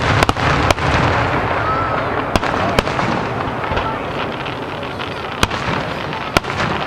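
Aerial fireworks bursting: a continuous rumble of booms with sharp cracks and bangs scattered through it.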